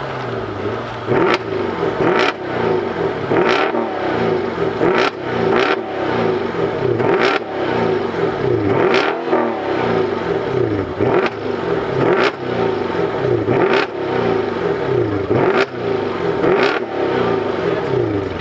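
Mercedes-Benz S63 AMG V8 exhaust, loud, the engine revved hard and let fall again and again, about once a second, with a sharp crack at many of the peaks.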